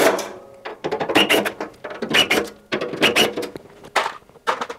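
Cordless drill-driver run in short bursts about a second apart, undoing the fixings that hold the drum assembly to the washing machine cabinet, with clicks and clatter of metal.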